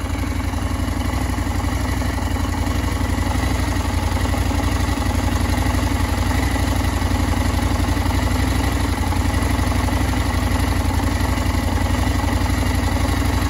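KTM 890 Adventure motorcycle's parallel-twin engine running steadily at an even speed.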